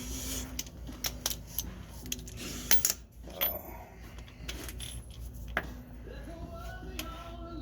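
Metal hand tools clinking and tapping: a scattered series of sharp metallic clicks.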